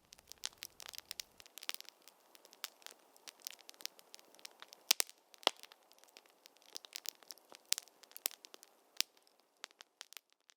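Irregular crinkling and crackling of camping gear being shifted about, a string of sharp little crackles with quieter rustling between them, stopping abruptly near the end.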